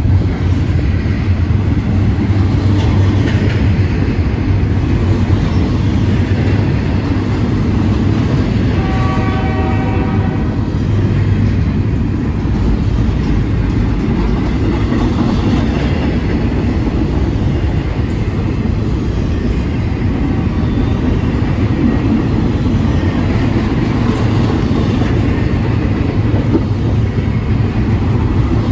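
Freight train cars rolling past close by: a steady, heavy rumble of wheels on rail. About nine seconds in, a train horn blows for about two seconds over the rumble.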